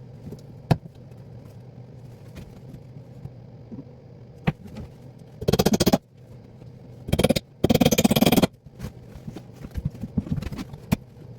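A small motor, likely a handheld power tool, run in four short bursts, the longest just under a second, with scattered clicks and knocks between them over a low steady hum.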